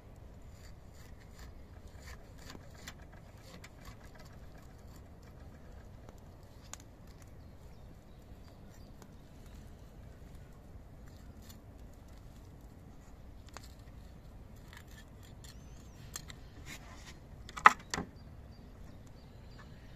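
Kitchen knife cutting and scraping through a mackerel on a wooden cutting board while it is gutted: scattered small clicks and scrapes, with a short burst of sharper knocks against the board near the end.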